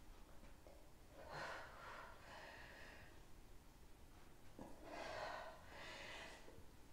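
A woman's faint breathing under exertion during dumbbell pullovers: two pairs of breaths, in and out, one about a second in and one about five seconds in, the second exhaled as she lifts the weight back up.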